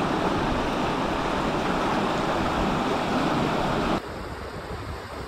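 Steady rushing of fast river current over rocks at the water's edge. About four seconds in it drops abruptly to a quieter, softer wash of water and wind.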